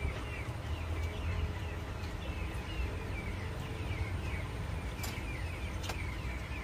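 Small birds chirping, short falling chirps a few times a second, over a steady low rumble. Two sharp clinks of cutlery on plates near the end.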